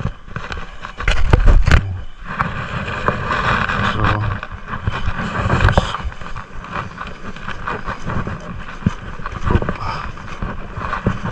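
Knocks, scrapes and rumbling as someone walks along a footbridge of lashed bamboo poles, with the heaviest thumps about a second in.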